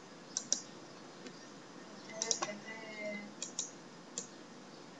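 Computer mouse clicking: about seven short, sharp clicks, most of them in quick pairs, over a low steady room hiss.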